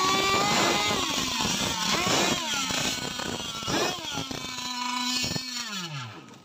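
Several small two-stroke gas engines of radio-controlled tunnel catamaran powerboats buzzing at once, their pitch rising and falling as they rev. Near the end one engine's note drops away and the sound fades.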